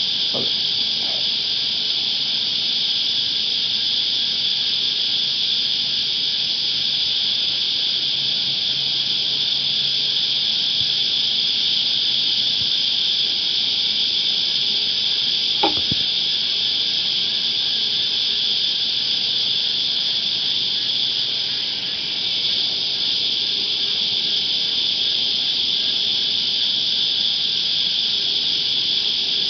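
Cicadas in a steady, high-pitched chorus, with a single sharp click about halfway through.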